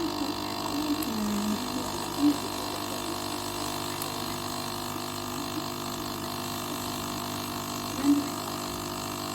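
Capsule coffee machine's pump running steadily as it brews a milk capsule into the cup.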